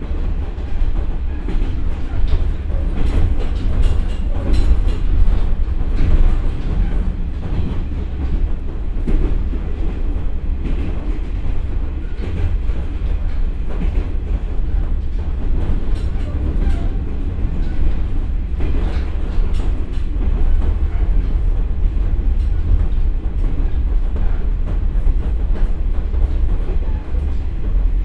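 Running sound of a KiHa 47 diesel railcar heard inside the cabin at about 55–60 km/h: a steady deep rumble from the Komatsu diesel engine and the wheels on the rails, with scattered faint clicks from the track.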